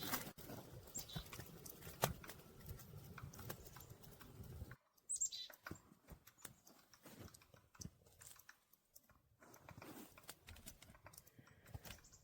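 Irregular crunching and snapping clicks, with a brief high, falling bird call about five seconds in.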